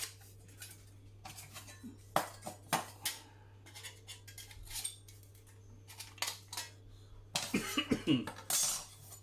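Thin titanium panels of a flat-pack wood-burning twig stove clinking and clattering as they are fitted together: a string of light metallic clicks and knocks, busier near the end.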